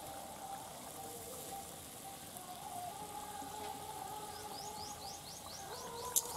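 Fish curry simmering faintly in a metal pan, with a steady, wavering whistle-like tone in the background. About two-thirds through, a bird gives a quick run of rising chirps, and a single sharp click follows near the end.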